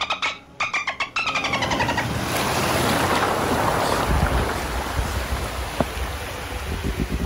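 Rushing, splashing river water as an off-road SUV ploughs through a deep ford, with a low engine rumble under it from about halfway through. A short, rapidly pulsing sound comes in the first second.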